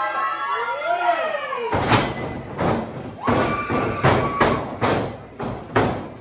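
Pro wrestling ring being hit again and again as the wrestlers grapple: a run of heavy thuds on the ring deck, about two or three a second, starting near two seconds in.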